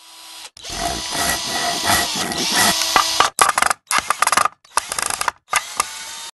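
Intro sound effect of mechanical noise: a dense stretch of about three seconds, then four short bursts that start and stop abruptly, with silent gaps between them.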